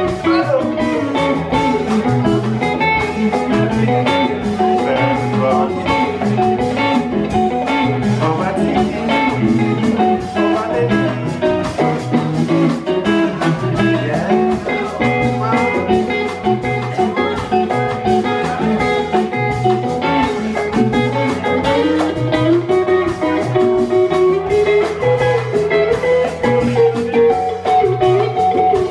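Live band playing classic Congolese rumba: interlocking electric guitar lines over a repeating bass line and drums.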